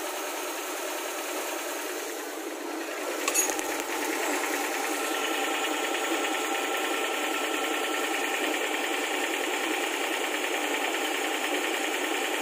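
Suzuki Multicab's small engine running steadily with a fast mechanical clatter. A single sharp click comes a little over three seconds in.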